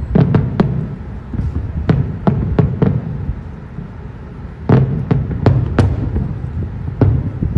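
Aerial fireworks shells bursting in a rapid, irregular series of bangs over a continuous low rumble, with a short lull in the middle before the bangs pick up again.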